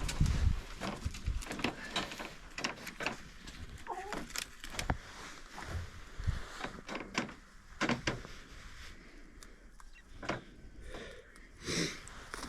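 Irregular clicks, taps and rustles of a rooster pheasant being handled while a leg band is fitted to its leg.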